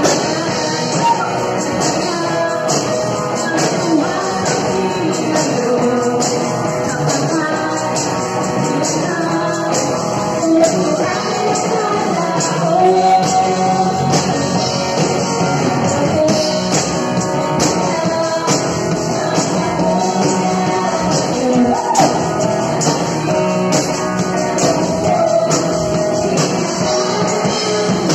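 A live worship band playing a song: a woman and a man singing into microphones over electric guitars and a drum kit.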